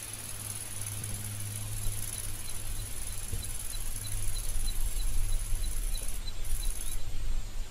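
Field ambience of insects: a steady high buzz with a regular run of short chirps, about two or three a second. Under it is a low rumble that grows louder in the middle and then eases.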